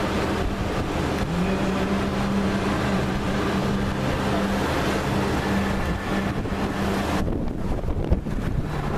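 Wind buffeting the microphone, a steady rushing noise with a low steady hum beneath it; the higher hiss falls away about seven seconds in.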